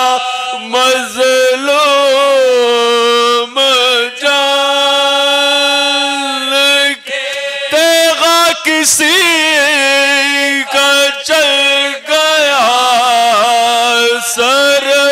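Men's voices chanting soz, a Shia Muharram lament: a lead reciter and a chorus of men singing together, holding long drawn-out notes that slowly swoop and waver in pitch, with short breaths between phrases and no instruments.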